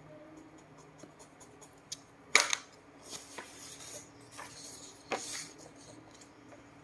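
A sheet of drawing paper being picked up and handled, rustling and crackling in a few short bursts, the loudest about two and a half seconds in.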